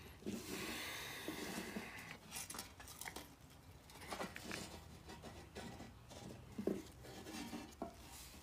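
Faint handling noise of gloved hands working a plastic 110-volt replacement plug and its cord: a rustle at first, then scattered small clicks and taps, with one sharper click a little before the end.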